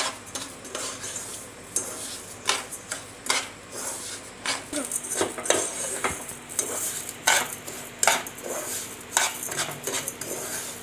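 Steel spoon stirring and scraping dry sugar granules around a nonstick saucepan in quick, uneven strokes, metal scraping and clinking on the pan. The sugar is being melted in a little ghee without water, just starting to clump and turn liquid.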